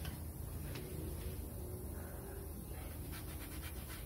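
A rag rubbing and wiping oil off an outboard's lower-unit gearcase, with a quick run of light scrubbing strokes about three seconds in, over a steady low hum.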